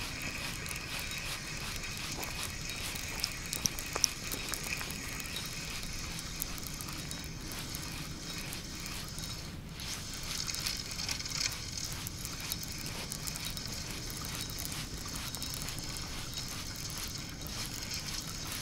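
Spinning reel cranked steadily on a fishing rod, its gears making a fine continuous clicking, as a hooked fish is reeled in. A few sharper ticks come about three to four seconds in.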